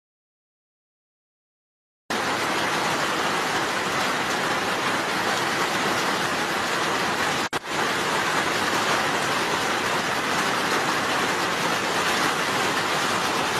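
About two seconds of silence, then heavy rain falling steadily, a loud even hiss with a very brief break a little past halfway.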